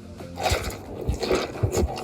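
A person chewing food close to the microphone: a string of irregular bites and mouth noises, several a second.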